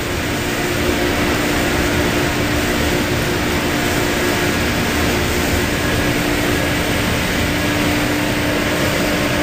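Large aqueous parts washer running a wash cycle, its wash pumps at about 185 psi driving the spray manifold inside the closed cabinet: a steady rushing hiss of water spray with a constant machine hum underneath.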